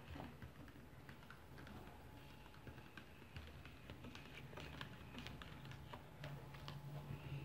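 Faint, scattered light clicks and taps of a utensil stirring liquid in a clear plastic tub.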